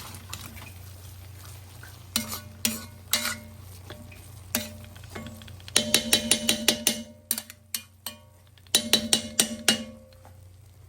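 Spoon stirring rice and water in a metal pot, knocking and scraping against the pot so that it rings, first in single knocks and then in two quick runs of clinks.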